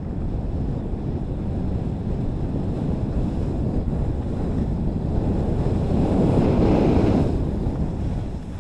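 Wind rushing over an action camera's microphone while skiing downhill, with skis hissing over the snow. It swells about six seconds in and eases off near the end.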